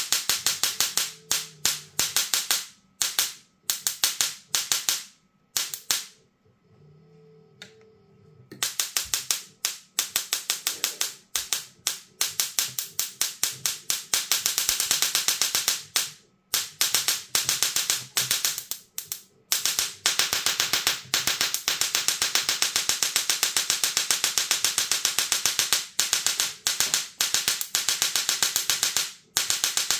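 Bluetooth music Tesla coil (plasma speaker) playing a tune through its spark discharge: a harsh electric buzz pulsing out the notes in quick rhythm. It breaks off for a couple of seconds about six seconds in, then plays almost without a break through the second half.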